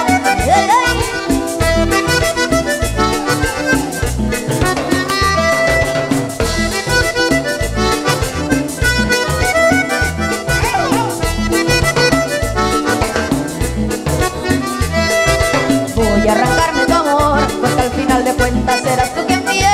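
Live música típica band playing an instrumental passage with no singing: a button accordion leads over congas and bass guitar, with a steady dance beat.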